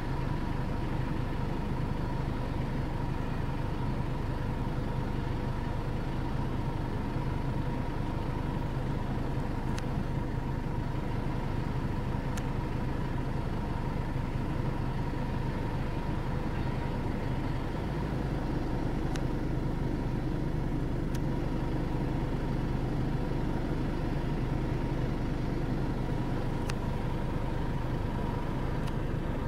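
An engine running steadily at idle, a constant hum, with a few faint clicks.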